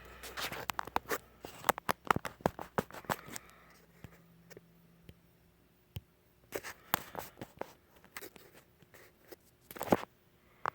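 Handling noise: clicks, taps and light scraping of objects being moved around on a workbench. They come in two quick flurries, and a single sharp knock near the end is the loudest sound.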